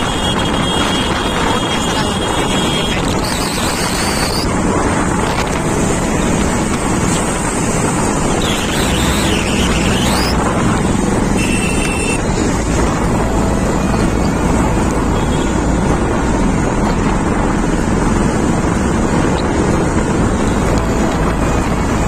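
Steady rush of wind buffeting a phone's microphone on an open vehicle moving along a busy road, mixed with the engine and tyre noise of the surrounding traffic.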